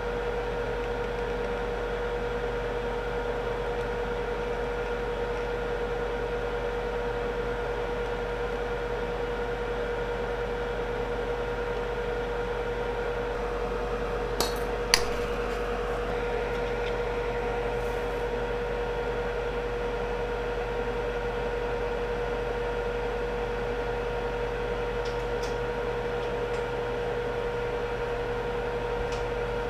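Steady electrical hum with a thin whine from the soldering bench equipment. About halfway through come two sharp metallic clicks, half a second apart, from steel tweezers handling copper desoldering wick on the chip.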